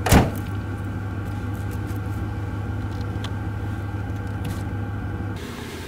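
Pickup truck engine idling with a steady low hum, and one sharp bang just after the start as the camper cap's rear window is shut.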